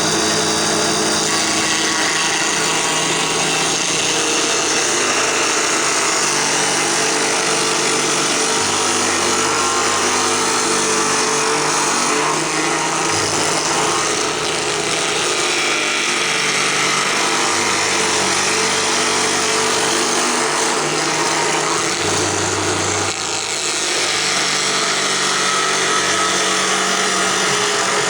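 Small drill press spinning a rotary safety planer that cuts across a board of burled walnut, a steady loud whirring and shaving noise that eases briefly late on.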